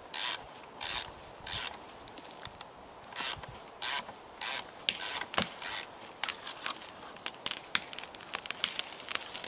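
Ratchet of a ratchet-driven screw felling jack (ropsikoukku) being cranked in short strokes, a rasping ratchet burst about every two-thirds of a second, as its screw pushes a spruce over from the felling cut. Past the halfway point the strokes give way to a growing run of sharp crackles, wood fibres snapping as the tree starts to give.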